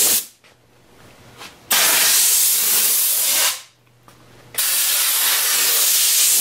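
Compressed-air blow gun hissing in long blasts as it blows grit off a lathe bed. One blast ends just as the sound begins, then two more of about two seconds each follow, with short pauses between.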